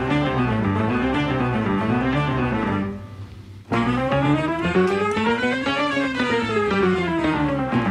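Instrumental background music that drops out briefly about three seconds in, then comes back with a run of notes climbing and then falling.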